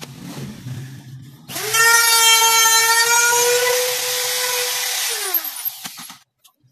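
Handheld electric wood router switched on about a second and a half in, running at a steady high whine for a few seconds. It is then switched off, and its pitch falls as the motor winds down.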